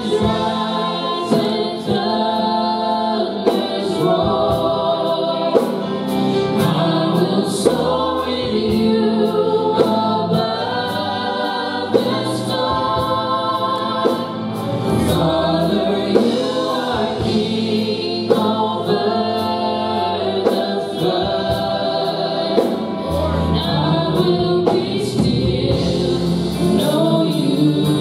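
Church worship team singing a slow worship song in harmony with live band accompaniment, over a steady beat of sharp percussion hits.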